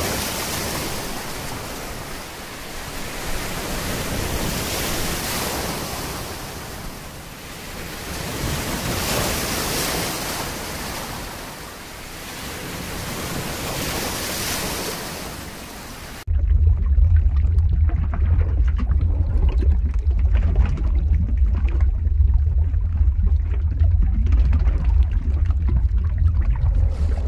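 Open-sea wave and wind noise, a full rushing sound that swells and eases every few seconds. About sixteen seconds in it cuts abruptly to a heavy, steady low rumble.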